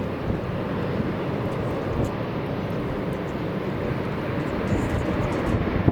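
Steady aircraft engine noise, a dense low rumble with no clear tone, mixed with wind on the microphone.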